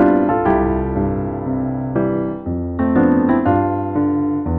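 Solo piano music playing a light, upbeat tune, with new notes and chords struck several times a second.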